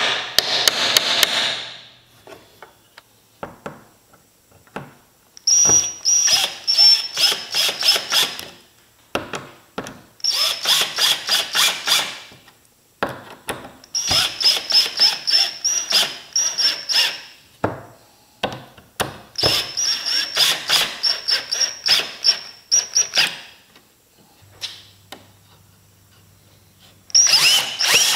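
Cordless drill boring holes into a pine board: about five separate runs of two to four seconds each, each a high whine with a rattling chatter, with short pauses between them. A brief noisy stretch sounds at the very start.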